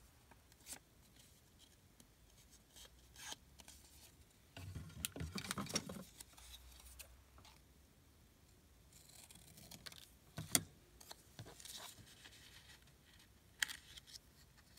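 Scissors snipping a strip of old book paper, with faint paper rustling and handling in between. The busiest stretch of cutting and rustling comes about five seconds in, and two sharp clicks follow in the second half.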